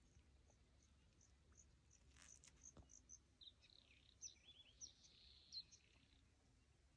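Near silence with faint, high bird chirps: a run of short, evenly spaced peeps, then a few quick falling notes.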